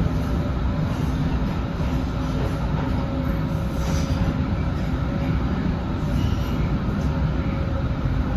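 Inside an MBTA Green Line light-rail trolley running on elevated track: a steady rumble of wheels on rail, with a faint steady whine above it.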